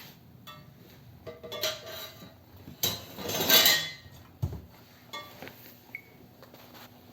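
Wood-burning stove being loaded with pine cones: scattered metal clinks and clanks, a louder rustling rush building to a peak about three and a half seconds in, then a low thump and a few more clicks.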